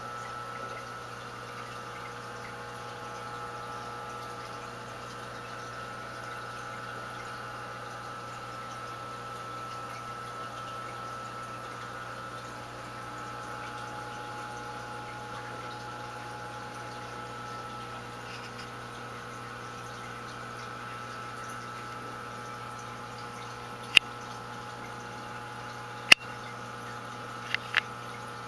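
Aquarium filter running with a steady hum and water trickling. A few sharp clicks come near the end.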